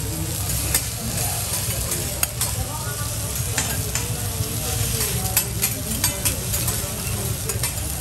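Wagyu fillet and vegetables (bean sprouts, cabbage, green onion) sizzling on a steel teppanyaki griddle, with metal spatulas clicking and scraping on the steel as the vegetables are tossed. A steady low hum runs underneath.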